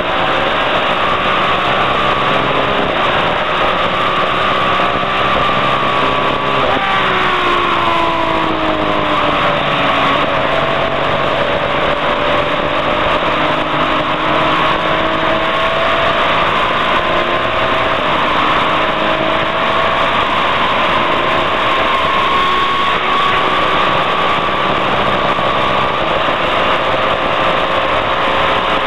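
Touring race car's engine heard from inside the car at racing speed in the wet, over a steady hiss. The engine note falls about seven seconds in as the car slows, then climbs slowly and steadily as it accelerates down a long straight.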